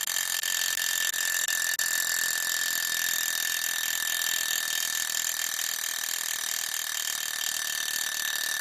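Alarm bell of a c.1900 German miniature travel alarm clock ringing, loud and steady at one unchanging pitch.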